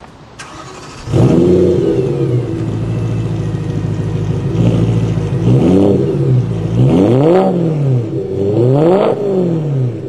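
BMW M car's engine through a Meisterschaft GT exhaust starting up about a second in, flaring and settling to a steady idle, then revved three times in quick blips that rise and fall.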